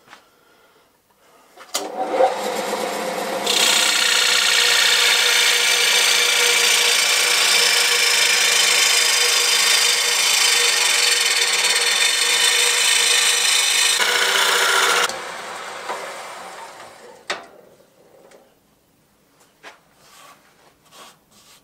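Wood lathe spinning a bowl while a turning gouge cuts the inside: a loud, steady hiss of the edge shaving the wood starts about three seconds in and stops abruptly a little past the middle. The lathe's running sound then fades away over a few seconds, leaving only faint clicks.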